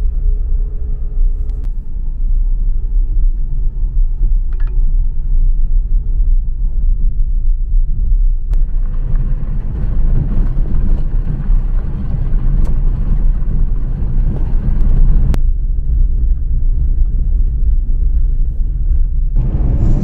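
Car driving on a rough desert dirt road, heard from inside the cabin: a steady low rumble of engine and tyres. From about eight seconds in to about fifteen seconds in, a harsher, brighter rushing noise cuts in and then drops out abruptly.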